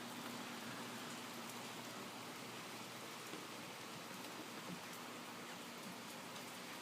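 Steady rain falling, a soft even hiss.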